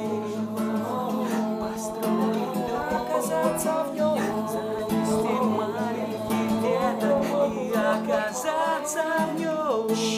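Live acoustic guitar with a man singing the last bars of a song, the voice gliding up and down over the chords. The music ends about ten seconds in.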